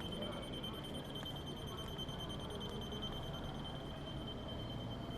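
Quiet city ambience: a low, steady rumble with a continuous high-pitched ringing tone over it, rapidly pulsing and unchanging.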